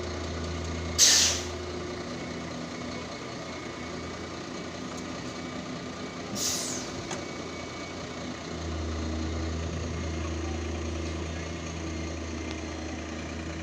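Heavy engine running steadily, with two short, sharp air-release hisses, one about a second in and another about six seconds in. The engine's low hum grows louder about eight and a half seconds in.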